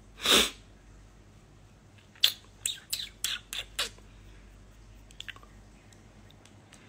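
A person's sharp breath into the microphone, then a quick run of about seven short, high squeaky mouth sounds about two to four seconds in.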